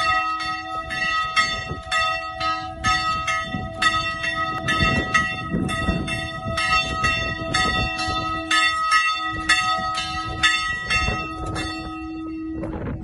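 Church bells ringing in quick, even strikes, about three a second, the notes ringing on between strikes, rung to welcome the New Year. The strikes stop shortly before the end.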